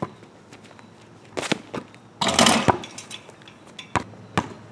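Basketball bouncing sharply on an asphalt driveway, with a loud half-second clatter about two seconds in as the ball and hands hit the rim and backboard of a pole-mounted hoop, then two more bounces near the end.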